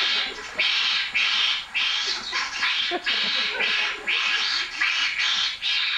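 Male spotted bowerbird giving harsh, rasping screams in courtship, about two a second, each under half a second long, played back from field video over a lecture-hall sound system.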